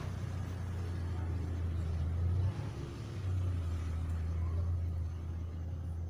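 A low steady rumble, dipping briefly a little past the middle.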